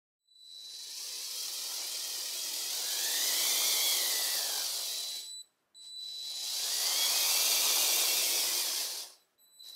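Motorised Lego Technic train chassis on two powered six-wheel bogies running along plastic Lego track: electric motors and gears whining with the wheels clattering, a whine that rises and falls in pitch. It swells and fades twice, each time breaking off abruptly.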